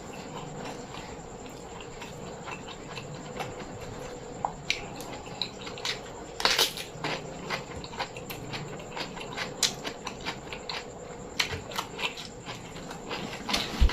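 Close-miked eating sounds: chewing and mouth smacks as a string of irregular small clicks, with one louder noise about six and a half seconds in.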